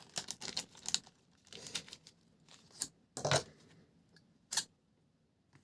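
Small metal dart parts clicking and clinking as a 2-gram add-on weight is handled and fitted to a tungsten dart: scattered light clicks, the loudest two a little past the middle.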